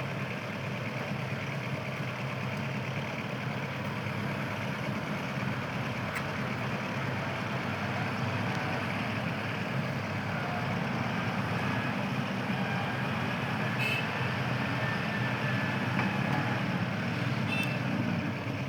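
Heavy engine running steadily, a low drone that grows a little louder toward the end, with a few brief sharp clicks.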